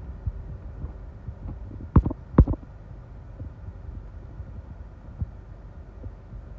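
Gusty storm-outflow wind buffeting the car, heard from inside the cabin as a low rumble with irregular thumps. Two sharp knocks come close together about two seconds in.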